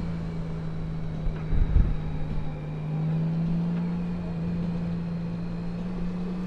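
Touring motorcycle engine running steadily at road speed, heard from the rider's seat over a low wind rumble; its note climbs slightly in the second half. A brief low thump comes about a second and a half in.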